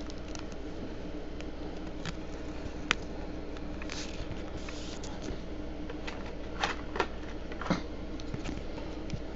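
Trading card being handled between the fingers: a single sharp click about three seconds in, then a cluster of clicks and rustles around seven seconds, over a steady low background hum.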